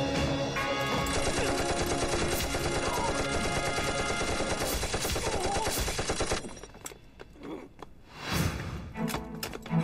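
Dense rifle and machine-gun fire, a continuous fusillade over background music. It stops about six seconds in, leaving a few scattered shots and thuds.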